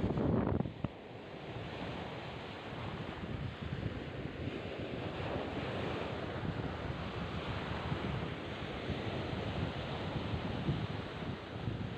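Surf washing onto the beach in a steady wash, with wind buffeting the microphone, strongest in the first second.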